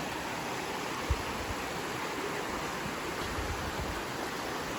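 Steady rush of running water from the trail's creek, with a brief low bump about a second in.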